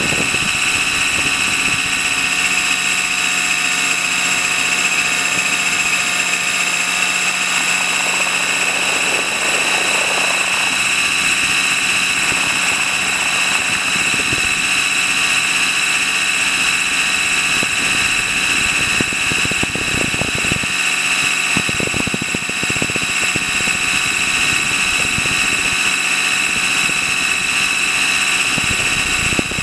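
Align T-Rex 600 RC helicopter's motor and rotor heard from a camera mounted on its skid, a steady high whine over a low rumble.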